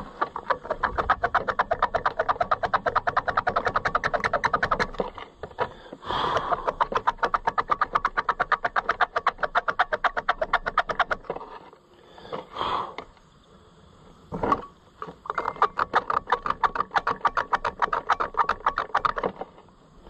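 Screwdriver scraping back and forth on metal inside an opened Fiat tractor klaxon horn, cleaning the dirty contact points. Quick, even strokes, about ten a second, come in three long bouts, with a few separate knocks in the longer pause about halfway through.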